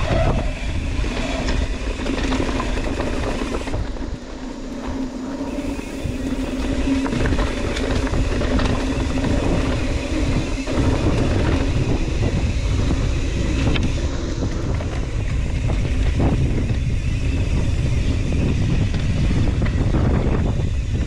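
Mountain bike riding fast down a rough, rocky trail: wind rushing over the camera microphone, tyres rumbling over dirt and rock, and the bike rattling, with a few sharper knocks from hits on the rocks.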